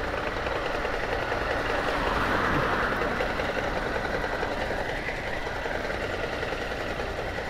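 A DINA truck driving at road speed: steady engine and road noise with no change in pace.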